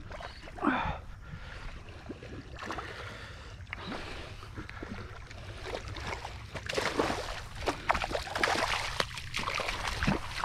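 A hooked largemouth bass thrashing and splashing in shallow, weedy water as it is drawn in to the bank. The splashing grows busier and louder in the second half.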